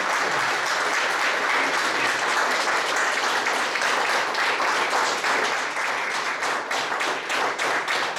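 Audience applauding, a dense steady clapping that thins toward the end into more distinct separate claps.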